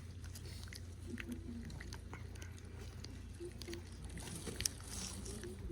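A cat chewing food: many small, irregular clicks over a steady low rumble, with one sharper click near the end.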